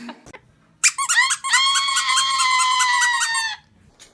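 A high-pitched squeal: a few quick chirps, then one long held squeal for about two seconds, falling slightly in pitch before it stops.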